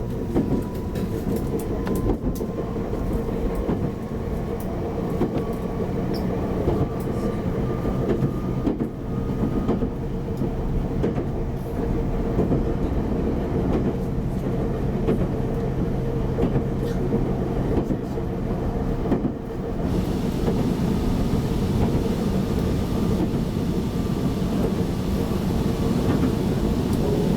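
Meitetsu 7000 series electric train running along the line: a steady rumble of wheels on rail with occasional clicks from rail joints, under a faint whine that climbs in pitch over the first ten seconds.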